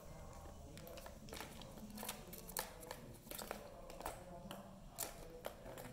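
Tower of Tracks plastic ball-track cat toy knocked about by kittens: an irregular run of sharp plastic clicks and knocks, the loudest about two and a half and five seconds in.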